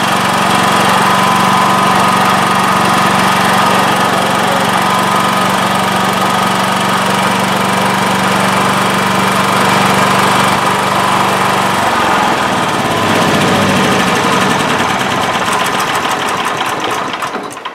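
Honda EB5000 portable generator's engine running steadily, then shut off and slowing to a stop near the end. The generator is running but not putting out power.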